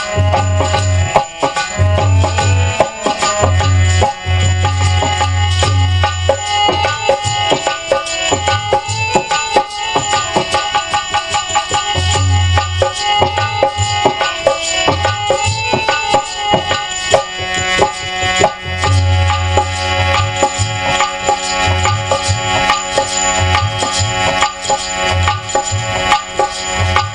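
Instrumental devotional music built on fast tabla drumming with deep, booming bass strokes, under a held melody line.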